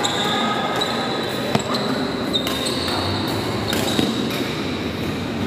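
Badminton rally: three sharp clicks of rackets striking the shuttlecock, with high squeaks of court shoes on the court mat over the noise of a large hall.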